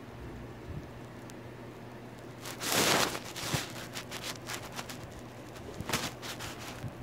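Rustling and rubbing of bedsheets and fur close to the microphone, in irregular scratchy bursts: a loud rustle about three seconds in and a shorter one near six seconds, over a low steady hum.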